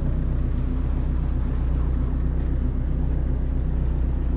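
Scania marine diesel engine of a fishing cutter running steadily, heard from inside the cabin as a low, even drone.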